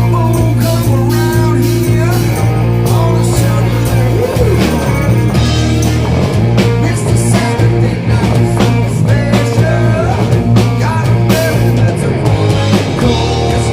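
Rock band playing: electric guitar over a steady bass line and drum kit, with singing.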